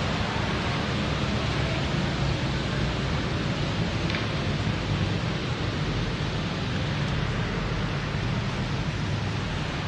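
Heavy rain pouring steadily, with a low rumble underneath and a faint tick about four seconds in.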